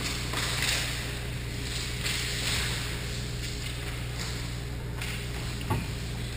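Ice skate blades scraping and carving on the ice, with hockey sticks clattering in a scramble at the goal mouth, and one sharp knock about five and a half seconds in. A steady low hum lies underneath.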